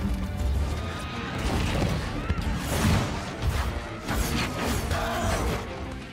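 Action-film soundtrack: score music under a dense run of crashes, whooshes and impacts.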